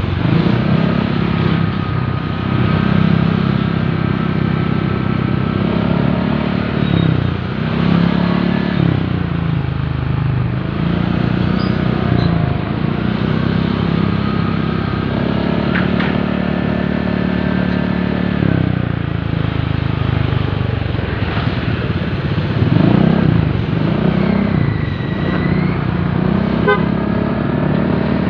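Motorcycle engine running on the move through traffic, its pitch rising and falling as the throttle changes. Horn toots from surrounding traffic come through a few times.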